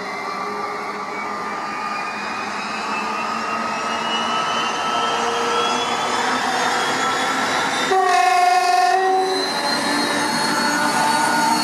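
2TE116 twin-section diesel locomotive accelerating hard under load, its engine note rising steadily in pitch and growing louder as it approaches. About eight seconds in its horn sounds one blast, lasting about a second.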